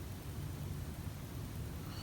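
A sleeping person's quiet breathing in the pause between snores: a faint low rumble and soft hiss, with the next loud snore just starting at the very end.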